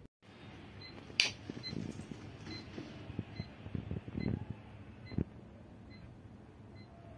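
Cabin sound of a parked bus: a low steady hum with a faint high beep repeating about every three-quarters of a second. A sharp click comes about a second in, followed by scattered soft knocks and thumps, with one more distinct knock near the five-second mark.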